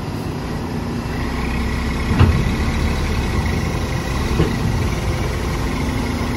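Heavy diesel machinery running steadily during sand loading, building slightly about a second in. A single sharp thump comes about two seconds in and a fainter knock a couple of seconds later.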